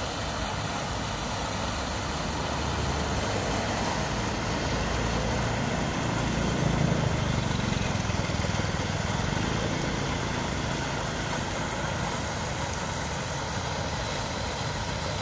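Steady outdoor street noise, an even rush, with a low engine rumble that swells and fades about halfway through, as of a vehicle passing.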